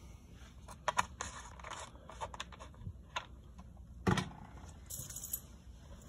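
Handling clatter of a plastic drain-cleaner bottle: a scatter of light clicks and knocks, a loud thump about four seconds in as it is set down, and a brief hiss near the end.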